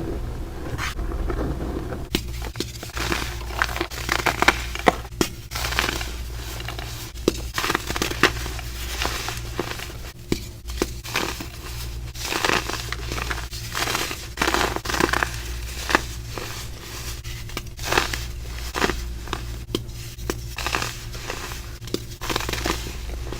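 Compacted baking soda being crumbled and squeezed, giving dense, irregular crunching and crackling with a snow-like squeak; the crunching starts about two seconds in.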